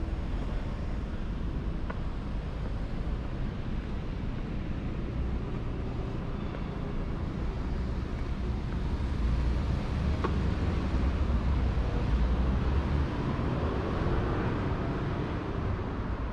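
City street ambience: a steady low rumble of road traffic, swelling louder for a few seconds past the middle.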